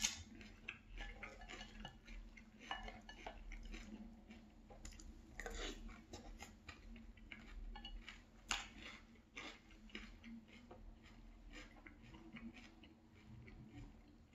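Spoon knocking and scraping against a glass bowl, with crunchy chewing of frosted corn flakes in milk. The sharpest knock comes right at the start, and others come about five and a half and eight and a half seconds in.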